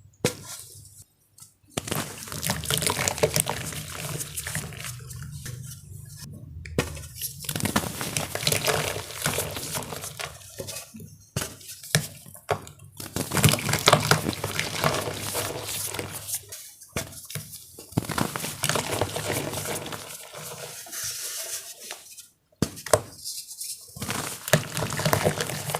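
Star-shaped blocks of gym chalk being crushed in water: a wet, crumbly crackling full of small sharp clicks, stopping briefly several times between takes.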